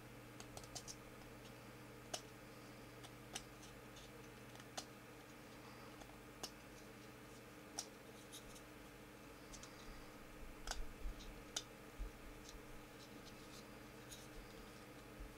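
Knife whittling a small piece of wood by hand: faint scraping with short, sharp clicks at irregular intervals, a few louder ones in a cluster about two-thirds of the way in, over a steady low hum.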